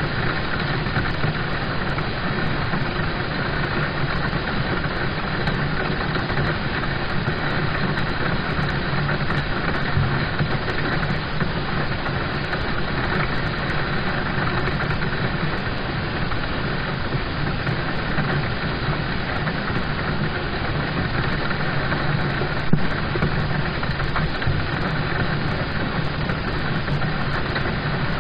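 Rain drumming on a car's roof and windows, heard from inside the cabin as a steady, dense patter with a low rumble under it. One sharper drop or tick stands out about 23 seconds in.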